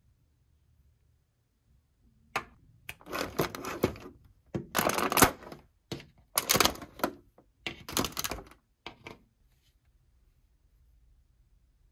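Thin clear plastic blister tray crinkling and crackling in several short bursts as figurines are pulled out of it, starting a couple of seconds in and stopping near the end.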